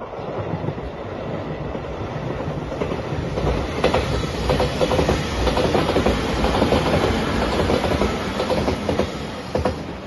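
Five-car Shiokaze limited express electric train passing, its wheels clattering over the rail joints. The noise builds through the first few seconds and stays up as the cars go by.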